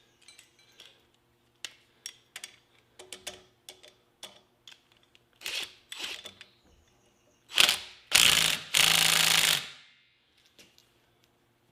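Scattered metallic clicks and ratcheting of drilling and clamping gear being set up, then, about three-quarters of the way through, a loud sharp burst followed by about a second and a half of loud rushing noise.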